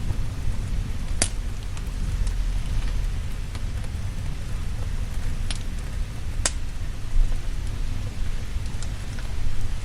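Steady rain over a low rumble of thunder, mixed with a crackling fire that gives a few sharp pops, the clearest about a second in and twice more around the middle.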